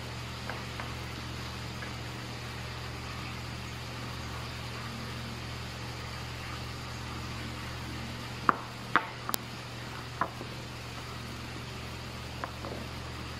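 Steady low hum of a kitchen room, with a few light knocks and clinks of dishes being handled on a counter, clustered about two-thirds of the way through.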